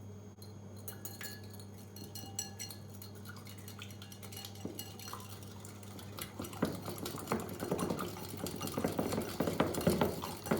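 Utensil clinking lightly against a bowl, then fast, louder whisking strokes in the bowl from about six and a half seconds in.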